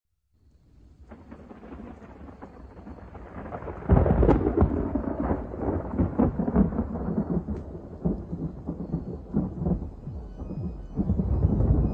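A low rumbling noise full of crackles fades in from silence and swells suddenly about four seconds in. Steady musical tones begin near the end as the background soundtrack starts.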